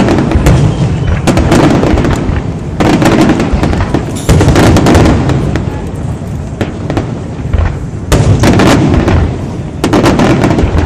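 Fireworks display: aerial shells bursting loudly in rapid, overlapping succession, a dense run of booms and sharp cracks with no pause.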